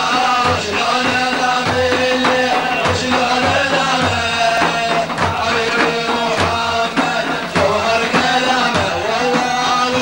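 Sufi devotional song music in a Middle Eastern style: a winding melody over a steady drum beat.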